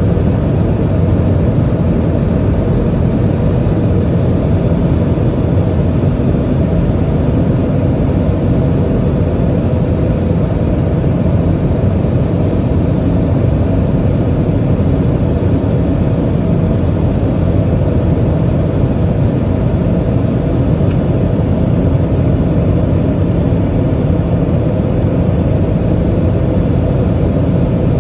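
Steady cabin noise inside an Airbus A320 descending on approach to land: a constant low rumble of engines and airflow with a faint steady hum.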